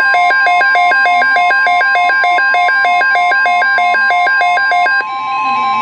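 NOAA Weather Radio warning alarm: a steady, loud single tone of about 1050 Hz. Over it, a second alarm tone flips between two pitches about four times a second and stops abruptly near the end.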